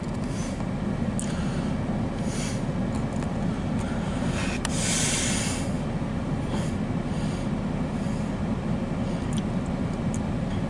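Approaching CSX diesel freight locomotive at the head of an empty coal train: a steady low rumble, with short hissing swells over it now and then, the longest about five seconds in.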